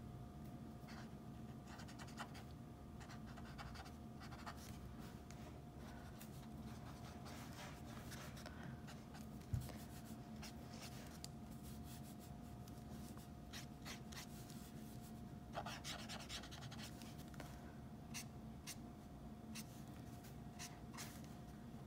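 Faint scratching of an alcohol marker's tip stroking and dabbing across sketchbook paper in many short strokes, over a faint steady hum. A single soft low thump comes about ten seconds in.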